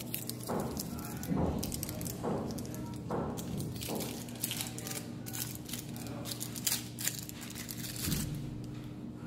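Handling noise: scattered clicks, taps and rustles as small lens boxes and lenses are picked up and moved, over a steady low hum.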